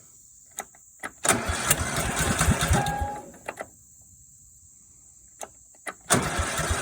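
Cub Cadet 2166 lawn tractor engine cranking over on starter fluid sprayed into the carburetor, in two bursts (the first about two seconds long, the second starting near the end) after a few clicks, without catching and running.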